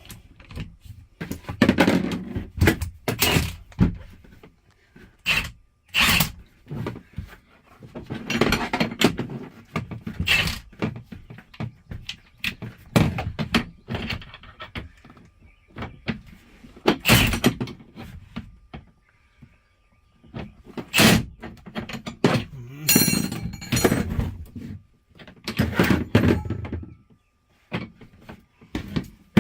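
Hammer blows knocking parts of a truck sleeper bunk into place: heavy thunks in irregular clusters, with short pauses between.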